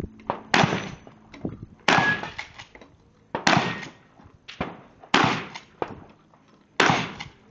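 Five gunshots from a rifle or shotgun, fired at an even pace about a second and a half apart, each a sharp report with a short echoing tail.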